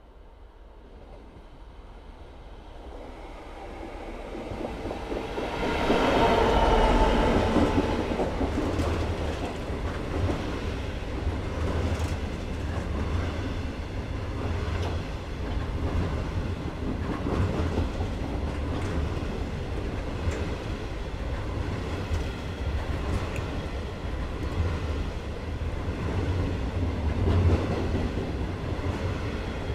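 Class 66 diesel locomotive with a two-stroke V12 engine approaching and passing, growing louder to a peak about six seconds in. A long rake of coal hopper wagons then rumbles past, with a steady clickety-clack of wheels over rail joints.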